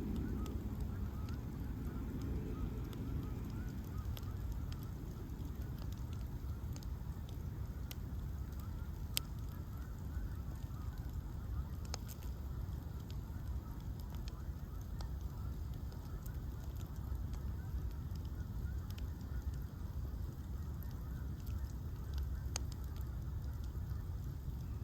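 Bonfire of ash logs burning with a steady low rumble and scattered sharp crackles and pops.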